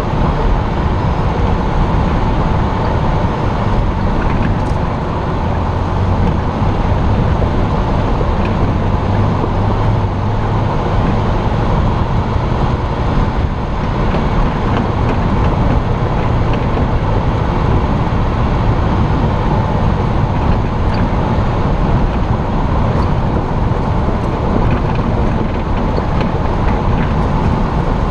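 A Jeep driving along a mountain road, heard from a camera mounted on its hood: a steady rush of engine and road noise.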